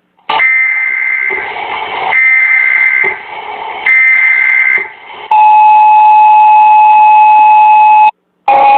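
Emergency alert system alarm tone, recorded off a broadcast: three bursts of a high tone over hiss, then a single steady tone held for about three seconds that cuts off abruptly.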